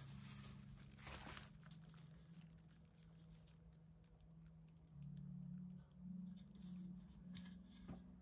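Bubble wrap and plastic packing being handled and pulled apart: faint, scattered crinkling and rustling, a little louder about a second in and again near the end, over a low steady hum.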